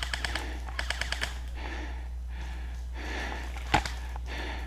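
Airsoft guns firing short rapid bursts of sharp clicks at the start and about a second in, followed by softer scuffing noises and one sharp knock near the end.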